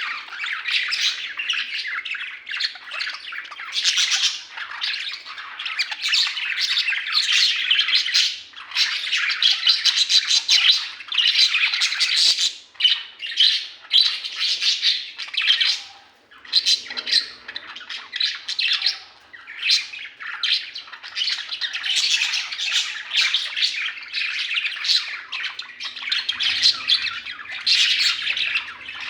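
Budgerigars chattering and squawking continuously, many quick overlapping calls with a couple of brief lulls.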